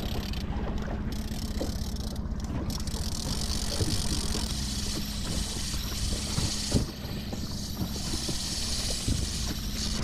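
Small outboard motor running steadily at trolling speed on a 12-foot aluminum boat, under wind and choppy water, with scattered light knocks.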